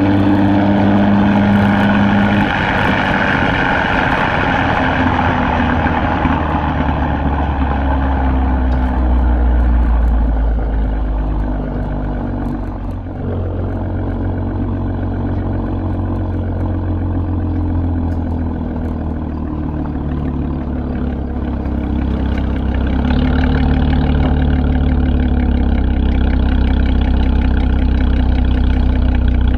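2016 Chevrolet Camaro RS engine running through a Borla ATAK axle-back exhaust with a deep, steady note. It eases off about twelve seconds in and grows louder again a little past twenty seconds.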